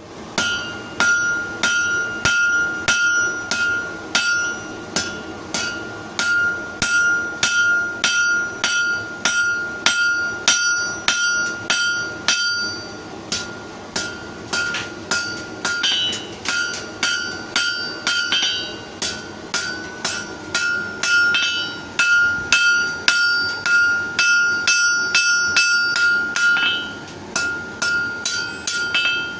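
Hand hammer forging half-inch square steel bar on an anvil: rapid steady blows, about three a second, with the anvil ringing a clear high tone between them.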